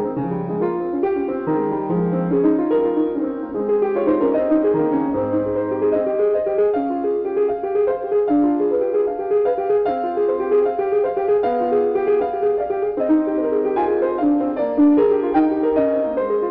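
Background piano music: a steady stream of short notes.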